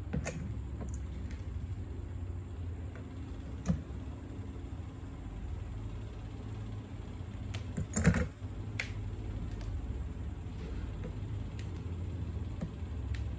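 Light clicks and taps of plastic parts of a homemade model airplane (PVC tube fuselage, bottle-cap wheels) being handled and fitted by hand, with a louder knock about four seconds in and the loudest clatter about eight seconds in. A steady low hum lies underneath.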